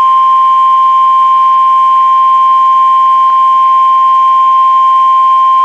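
NOAA Weather Radio warning alarm tone: a single loud, steady 1050 Hz beep held without a break, the signal that a warning broadcast follows.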